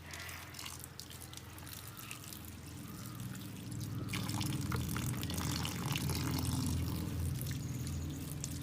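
Cut rose apple pieces being rinsed under running tap water, water splashing and trickling; the flow gets louder about four seconds in.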